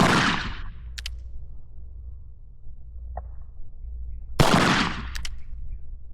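Two shots from a Cimarron Schofield single-action revolver loaded with Winchester Super X Cowboy Action ammunition, fired slowly and deliberately, the first right at the start and the second about four and a half seconds later, each sharp crack trailing off in a short echo.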